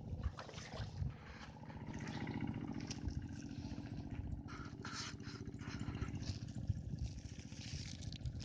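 Small engine running steadily, with scattered light knocks and rustles over it.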